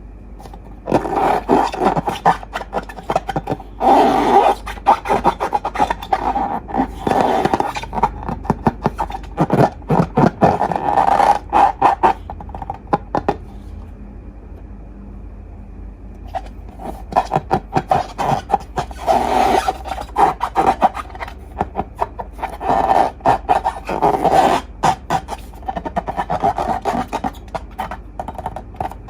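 Slime being squeezed and worked by hand close to the microphone, giving dense sticky crackling and scraping in repeated bursts, with a short pause about halfway through.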